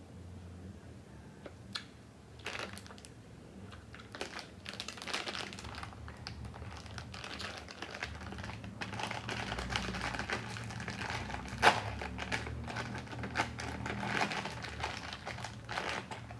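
Close-miked eating sounds: a fast, irregular run of crisp clicks and crackles, sparse at first and denser from about four seconds in.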